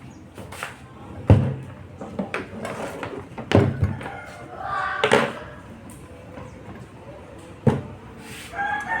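Three heavy knocks a couple of seconds apart, with lighter clicks and faint voices between them.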